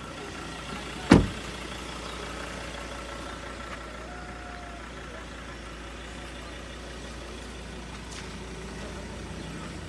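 A single loud thud about a second in, like a car door being shut, over a car engine idling steadily with a low hum.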